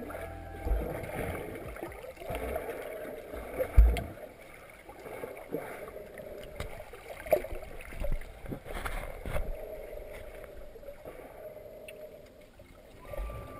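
Muffled underwater sound from a submerged camera: water moving and gurgling, with scattered clicks and a thump about four seconds in.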